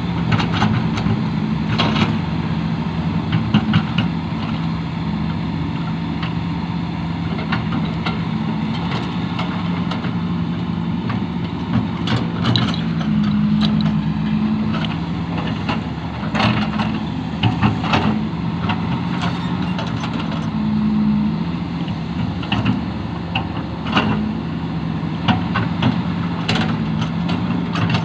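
Hitachi excavator's diesel engine running steadily while it works, its note lifting at times, with scattered sharp clanks and knocks.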